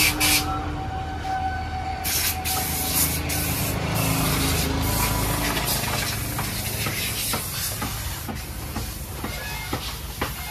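Pressure-washer water jet spraying against a muddy tractor, a loud hiss that sets in about two seconds in, over a steady low motor hum.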